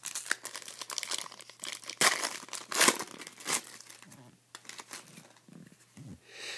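Trading card pack wrapper crinkling and tearing as it is ripped open and handled, with the loudest sharp rips about two seconds and three seconds in.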